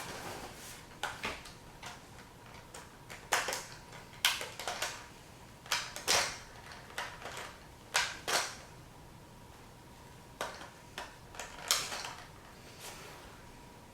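Fishing tackle and its plastic packaging being handled: irregular short crinkles and light clicks, some in quick pairs, with quiet gaps between.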